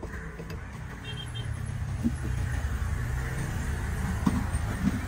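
An engine running, a steady low rumble that gets louder about a second in, with a few light knocks of a cleaver on a wooden chopping block.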